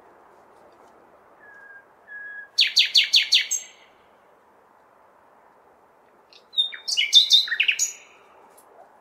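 Nightingale singing. Two soft whistled notes lead into a rapid run of loud repeated notes. After a pause of a few seconds comes a second, more varied phrase with a sharp falling note. A steady low hum of city noise runs underneath.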